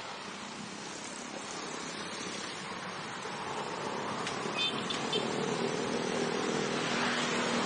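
Vehicle running on the road: steady engine, wind and road noise that grows louder toward the end, with a few short high chirps about halfway through.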